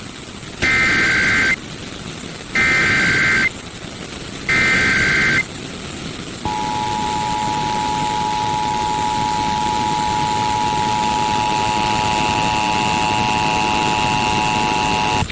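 Emergency Alert System broadcast signal: three one-second bursts of the buzzing two-tone SAME header data, a second apart, then about six seconds in the harsh two-tone EAS attention signal starts and holds steady. A steady hiss runs underneath.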